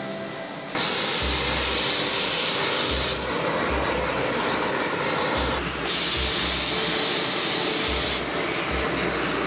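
Industrial gas burners blasting flame onto a frying pan with a loud, steady hiss that comes in two stronger bursts, starting about a second in and again past the middle, each lasting a couple of seconds, with a softer hiss between them.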